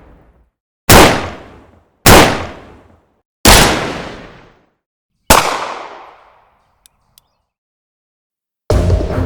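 Four single gunshots from a sound-effect recording, at uneven spacing a little over a second apart. Each is a sharp crack with a reverberant tail fading over about a second; the last tail rings longest. Two faint clicks follow, then music starts near the end.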